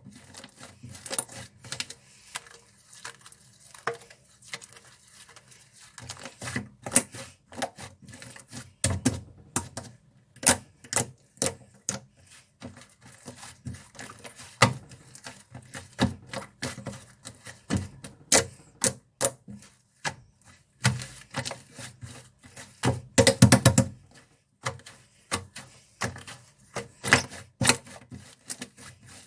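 Toffee slime being squished and pressed by hand, giving off irregular sharp clicks and pops, with a fast run of pops a little before the end.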